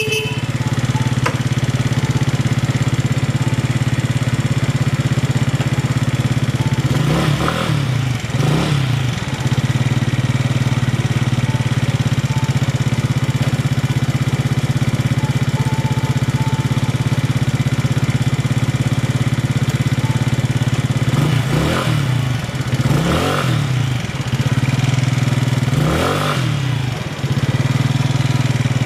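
2010 Hyosung GT125's small V-twin engine idling steadily, with about five quick throttle blips, two around 7–9 seconds in and three more between about 21 and 26 seconds. The seller notes an abnormal noise from the engine.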